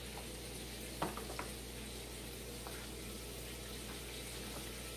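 Faint clicks and scrapes of a utensil stirring wet chicken dressing in an aluminium foil pan, the clearest about a second in, over a low steady hiss.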